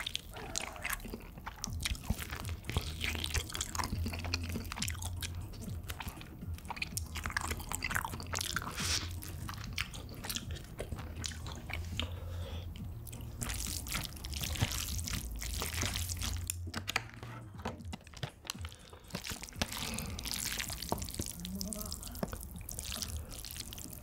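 Close-miked eating sounds: food crunching and being chewed, a dense irregular run of crisp clicks and wet mouth sounds.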